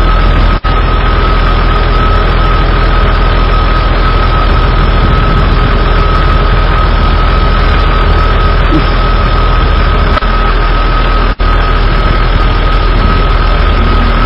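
Four-wheel-drive truck's engine running steadily at low speed as it crawls over rocks, with a steady high whine. The sound cuts out briefly twice.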